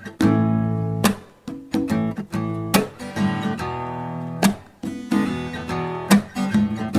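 Acoustic guitar music, a strummed chord pattern with a hard accented strum about every second and a half and lighter strokes between.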